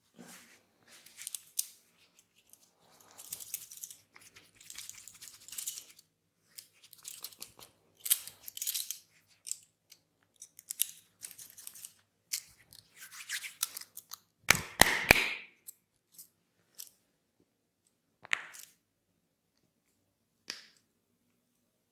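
Head massage: hands rubbing and scrunching hair and scalp, in short crisp bursts with pauses. A louder cluster with a few sharp clicks comes about two-thirds of the way through.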